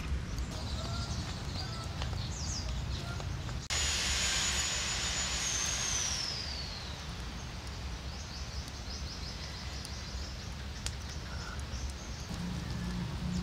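Outdoor background noise with a steady low rumble and a few faint bird chirps. About four seconds in, a high hissing buzz starts abruptly and fades after about two seconds, its pitch falling as it dies away.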